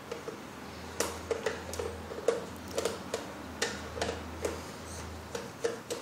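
Light, irregular clicks and taps of hands handling the plastic base of an Oster blender, over a faint low steady hum.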